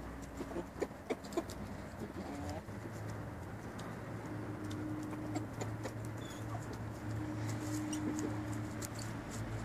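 Chickens clucking low while they forage, with drawn-out low calls and scattered small clicks and ticks.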